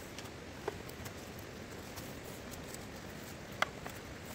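Cut bamboo pieces clacking lightly as a bamboo crossbar is lashed across a row of them: two short clicks, the second, near the end, louder, over a faint steady hiss.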